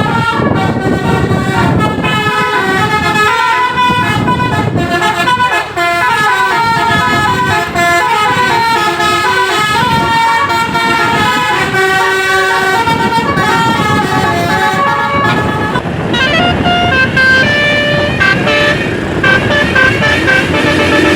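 Indonesian 'telolet' Basuri multi-tone bus horn playing a continuous tune of stepping notes over a low rumble. About 16 seconds in the tune changes to sparser, different notes.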